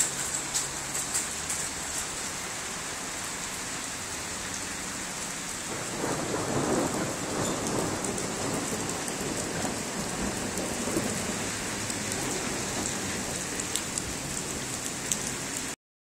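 Steady light rain falling on wet pavement, with scattered drips ticking close by. A roll of thunder swells up about six seconds in and rumbles on for several seconds before fading back into the rain.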